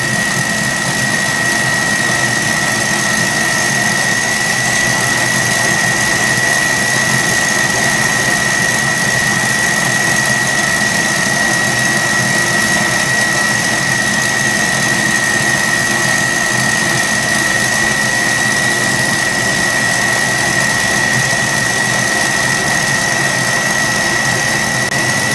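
Kenwood stand mixer running steadily, its whisk beating Italian meringue in the steel bowl while the meringue cools. A steady high whine rides over the motor noise.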